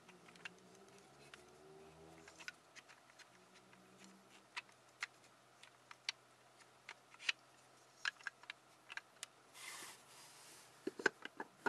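Light, scattered clicks and taps of a wooden cage puzzle being handled and turned over, its wooden pieces knocking against the frame. About 11 seconds in comes a quick cluster of louder wooden knocks as the puzzle is set onto its wooden stand.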